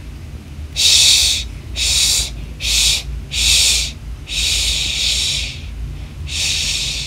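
Six breathy hissing bursts, like a voice going "shhh" for fire, each about half a second to a second long and irregularly spaced.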